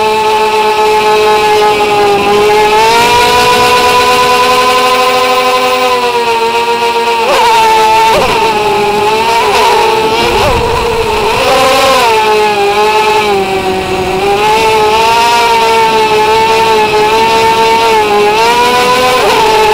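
Tricopter's electric motors and propellers whining, heard up close from the onboard camera; the pitch steps up about three seconds in, then rises and falls in quick surges with the throttle for a few seconds mid-flight before settling back to a steady whine.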